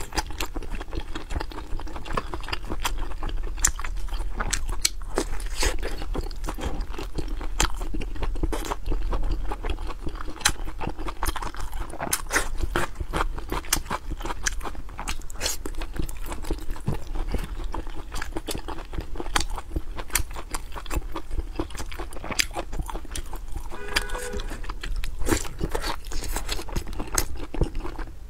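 Close-miked chewing and biting of a large pork sausage: a dense, continuous run of moist clicks and smacks from the mouth.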